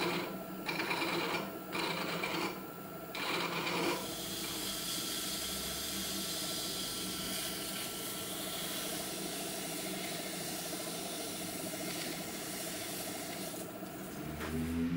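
Abrasive paper pressed by hand against the steel journal of a planer-thicknesser infeed roller spinning in a small lathe, polishing out galling scores. A few short rubbing strokes come first, then a long steady rubbing over the lathe's running hum.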